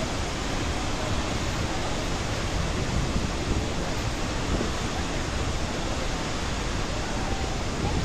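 A large waterfall pouring over a wide rock ledge: a steady, dense rush of falling water.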